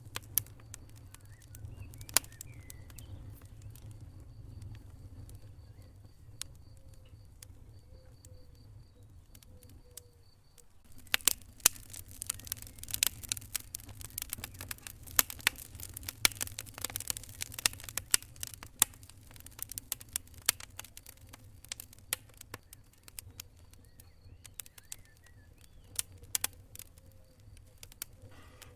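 Wood fire crackling in a fireplace: sharp pops scattered throughout, with a much denser run of crackling starting about eleven seconds in and lasting roughly ten seconds, over a low steady rumble.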